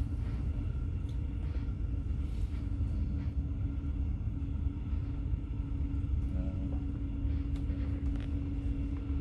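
Regional train running along the track, heard from inside the carriage: a steady low rumble with a constant hum that grows a little stronger about three seconds in.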